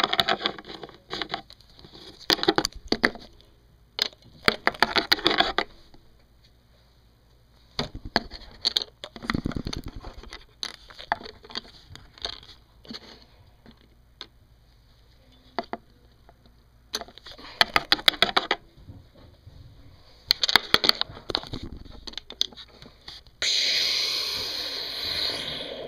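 Bursts of handling noise: clicks, rustling and scraping as small objects are moved about by hand, with quiet gaps between. Near the end a steady hiss runs for about two seconds and stops abruptly.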